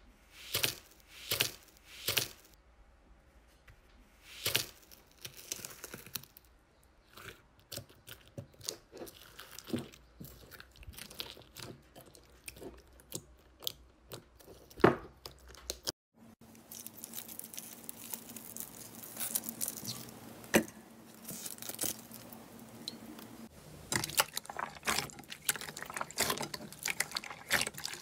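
Hands pressing and kneading iceberg slime, its dried crust cracking with sharp separate crunches that come in a quicker run near the middle. About halfway through the sound changes to a denser run of small crackles and squishes from another slime being squeezed, over a faint steady hum.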